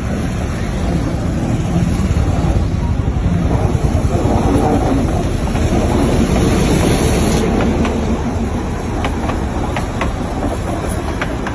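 Darjeeling Himalayan Railway toy train running on its narrow-gauge track: a loud, steady running noise, with a few sharp clicks of the wheels on the rails in the second half.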